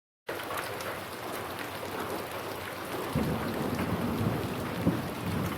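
Rain falling steadily, cutting in abruptly out of silence just after the start. From about three seconds in, a low rumble of thunder builds under it.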